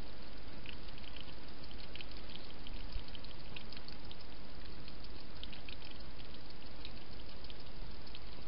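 European hedgehog feeding from a dish, its mouth making many small, irregular clicking and smacking sounds over a steady hiss.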